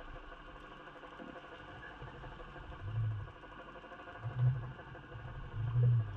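Underwater camera housing jerked through the water as the jig below it is worked, giving three low, muffled thumps about a second and a half apart over a steady low hum.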